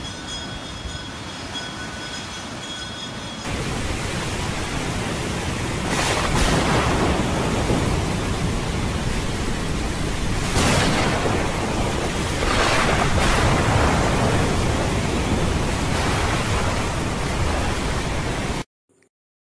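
Surf breaking on rocks, with wind on the microphone, for the first few seconds. Then a sudden change to a louder stormy rush of wind and rain that swells up several times, which cuts off abruptly just before the end.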